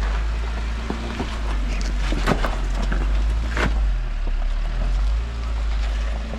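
Off-road 4x4 vehicle running with a steady low rumble, with two sharp knocks about two and a half and three and a half seconds in.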